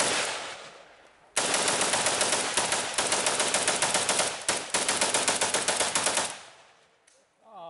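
AK-47 rifle firing a long string of rapid shots, several a second, for about five seconds with a short break about halfway. The string stops about six seconds in.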